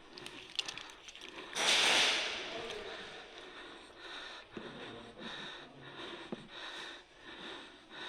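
Heavy, rapid breathing right at the microphone: a player panting, out of breath from exertion in full kit in the heat, with a loud breath about two seconds in. A few sharp clicks come near the start.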